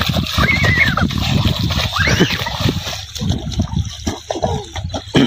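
Feet splashing and sloshing through shallow muddy water in a flooded rice paddy as children run and slide, in quick irregular splashes. Two short high cries rise and fall over the splashing, one about half a second in and one about two seconds in.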